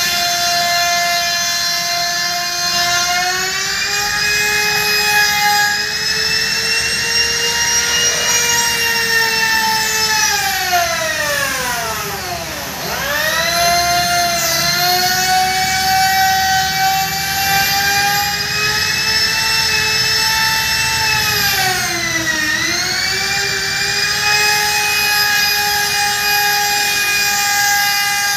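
Handheld trim router running with a steady high whine. Its speed falls away sharply about halfway through and winds back up, then dips briefly once more later on.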